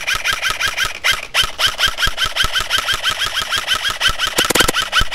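Airsoft rifle firing on full auto in long sustained bursts, with a brief break about a second in.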